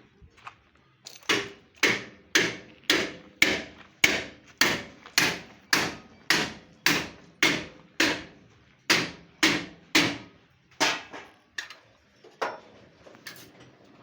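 Hand hammer striking steadily, about two blows a second, some twenty blows in all, each with a short ring; the blows slow and grow weaker near the end.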